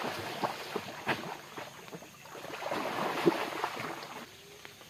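A giant snakehead (toman) thrashing at the surface on a fishing line, a run of splashes and slaps in the water, loudest about three seconds in. The splashing dies down near the end.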